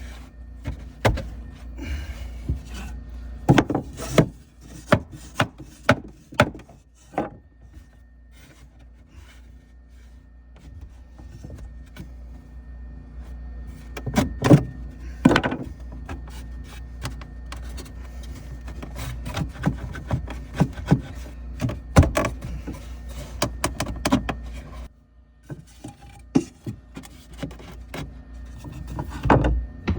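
Wood being handled and worked: irregular wooden knocks and clunks with some rubbing, over a steady low hum.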